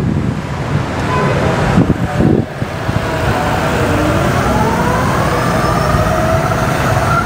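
ENGWE Engine Pro e-bike's 750 W rear hub motor spinning the rear wheel up under full throttle in sport mode: a whine that rises steadily in pitch from about three seconds in, over a steady rushing noise.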